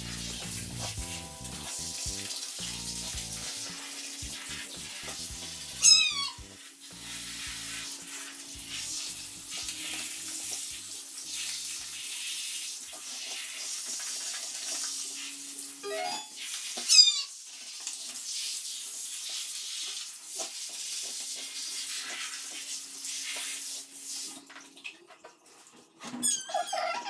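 A handheld shower head hisses steadily as it sprays water over a wet cat, and the cat meows several times, with two loud, sharp, falling cries about six and seventeen seconds in. The spray stops a few seconds before the end, and the cat meows again in a thin, delicate voice.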